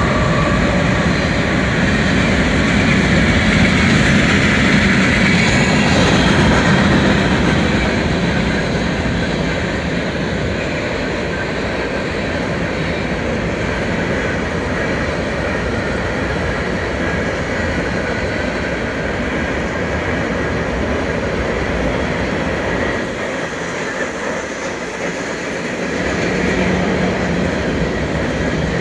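Freight train passing: diesel locomotives going by at first, loudest in the first few seconds, then a long string of loaded covered hopper cars rolling past with steady wheel-on-rail noise.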